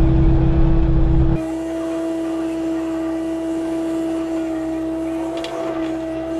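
Kubota KX080 excavator's diesel engine and hydraulics running steadily under work, with a constant droning tone. For the first second or so it is heard inside the cab with a heavy low rumble, then from outside, lighter, with a few faint knocks near the end as the bucket works the soil.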